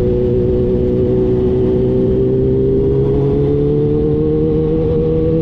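Kawasaki Ninja H2's supercharged inline-four engine running under way at a steady pitch, then rising slowly as the bike gathers speed, over low wind and road rumble.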